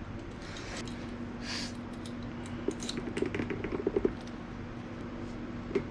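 Small clicks and rattles of parts being handled, in a cluster about three to four seconds in, then a single knock near the end, over a steady low hum.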